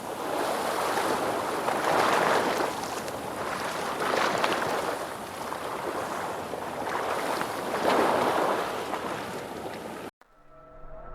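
Ocean surf washing in and out, a rushing noise that swells and falls every two to three seconds. About ten seconds in it cuts off abruptly, and soft ambient music of sustained tones fades in.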